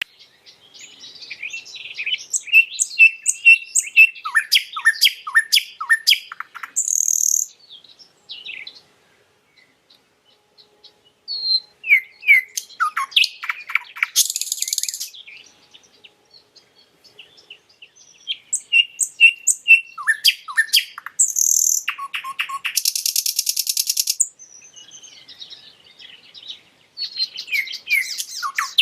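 Nightingale singing in phrases of a few seconds, separated by short pauses. The phrases mix quick repeated notes, runs of falling notes and harsh, buzzy rattles.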